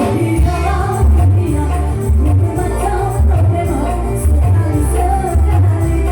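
Live dangdut music played loud through a PA system: a heavy pulsing bass and drums with a melody line, and a voice singing.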